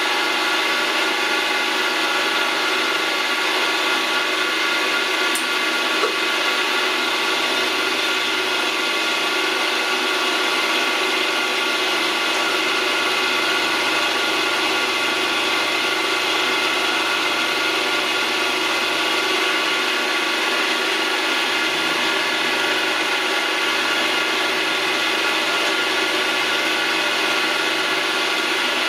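Milling machine running steadily with its spindle turning a small cutter. It makes an even whine of several steady tones that doesn't change in speed.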